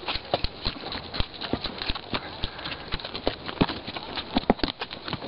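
Horses walking over loose stones and gravel: an irregular clatter of hoofbeats, several a second, with stones knocking underfoot.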